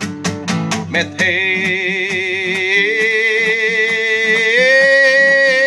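Song with acoustic guitar: a few quick guitar strums, then about a second in a singer holds one long note with vibrato that steps up in pitch twice.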